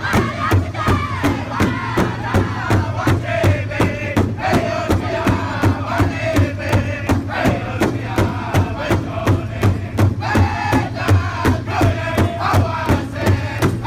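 Powwow drum group singing in full voice around a single large drum, the singers striking it together with drumsticks in a steady beat of about three strokes a second.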